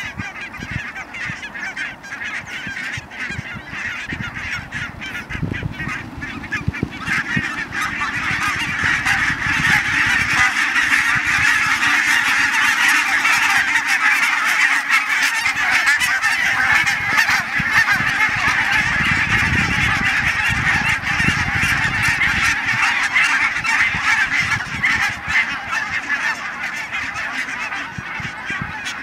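A large flock of barnacle geese calling all together, many overlapping calls in a dense chorus. It swells about a third of the way in, stays loud and eases a little near the end.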